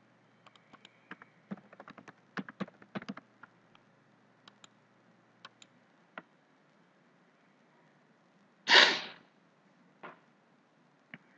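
Computer keyboard keys clicking in a quick run as a password is typed, then a few scattered clicks. About two-thirds of the way through, a short loud rush of noise lasting about half a second is the loudest sound, with a fainter one about a second later.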